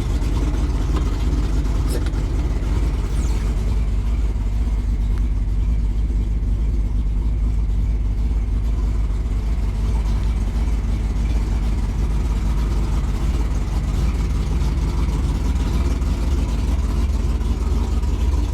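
A vehicle engine idling steadily, a constant low rumble.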